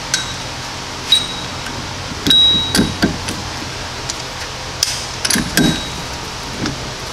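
Metal clinks and knocks as a Snap-on C-frame ball joint press and its receiving cup are worked into place around a lower ball joint. The knocks come one at a time throughout, and a couple of them leave a short high ring.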